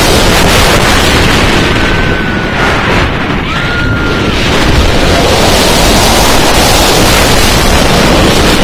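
Wind rushing hard over the microphone of a roller coaster's front row as the B&M hyper coaster train runs along the track. The rush eases about two to four seconds in as the train slows over the crest of a camelback hill, then builds again on the drop.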